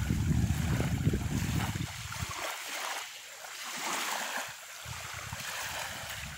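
Wind buffeting the microphone, a low rumble that drops away for a couple of seconds midway and then returns, over a steady hiss of small waves lapping at the shore.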